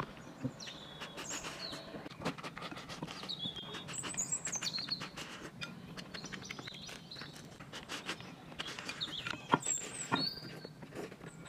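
Fast eating with chopsticks: repeated clicks and scrapes of chopsticks on a porcelain plate as rice is shovelled into the mouth. Birds chirp in the background throughout, in short high calls.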